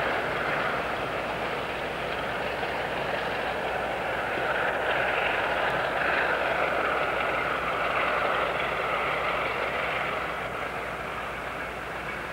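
Distant diesel-hauled ballast train passing: a steady rumble of locomotive engines and rolling wagons, growing fainter near the end.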